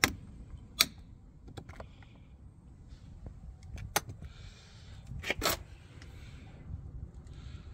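Hands working on a car door's plastic trim and screws with small tools: a few sharp clicks and knocks, the loudest about a second in, with short stretches of rustling and scraping between them.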